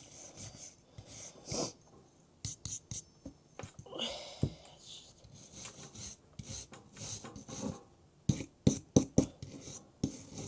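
Wire brush scrubbing by hand over the steel head of a splitting maul in short, irregular strokes, taking off old paint and rust. A handful of sharper knocks come near the end.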